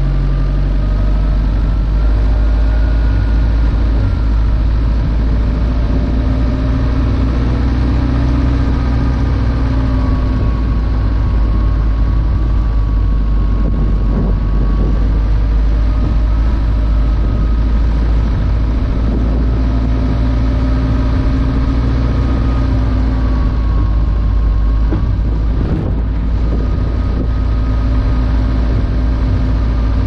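A car being driven, heard through a car-mounted action camera: a steady, heavy low rumble of road and wind noise on the microphone, with the engine's tone slowly rising and falling as the speed changes.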